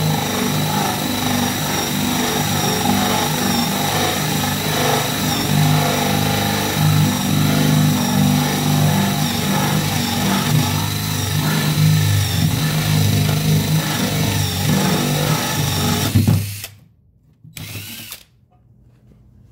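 Power drill boring a large bit through OSB: the motor runs steadily with a high whine over the grinding of the cut. It stops suddenly near the end, followed by one short burst of the drill about a second later.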